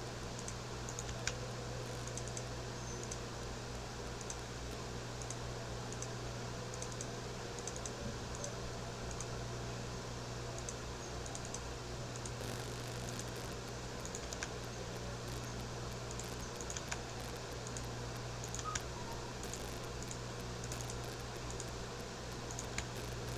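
Steady low electrical hum and faint hiss, with scattered faint clicks now and then.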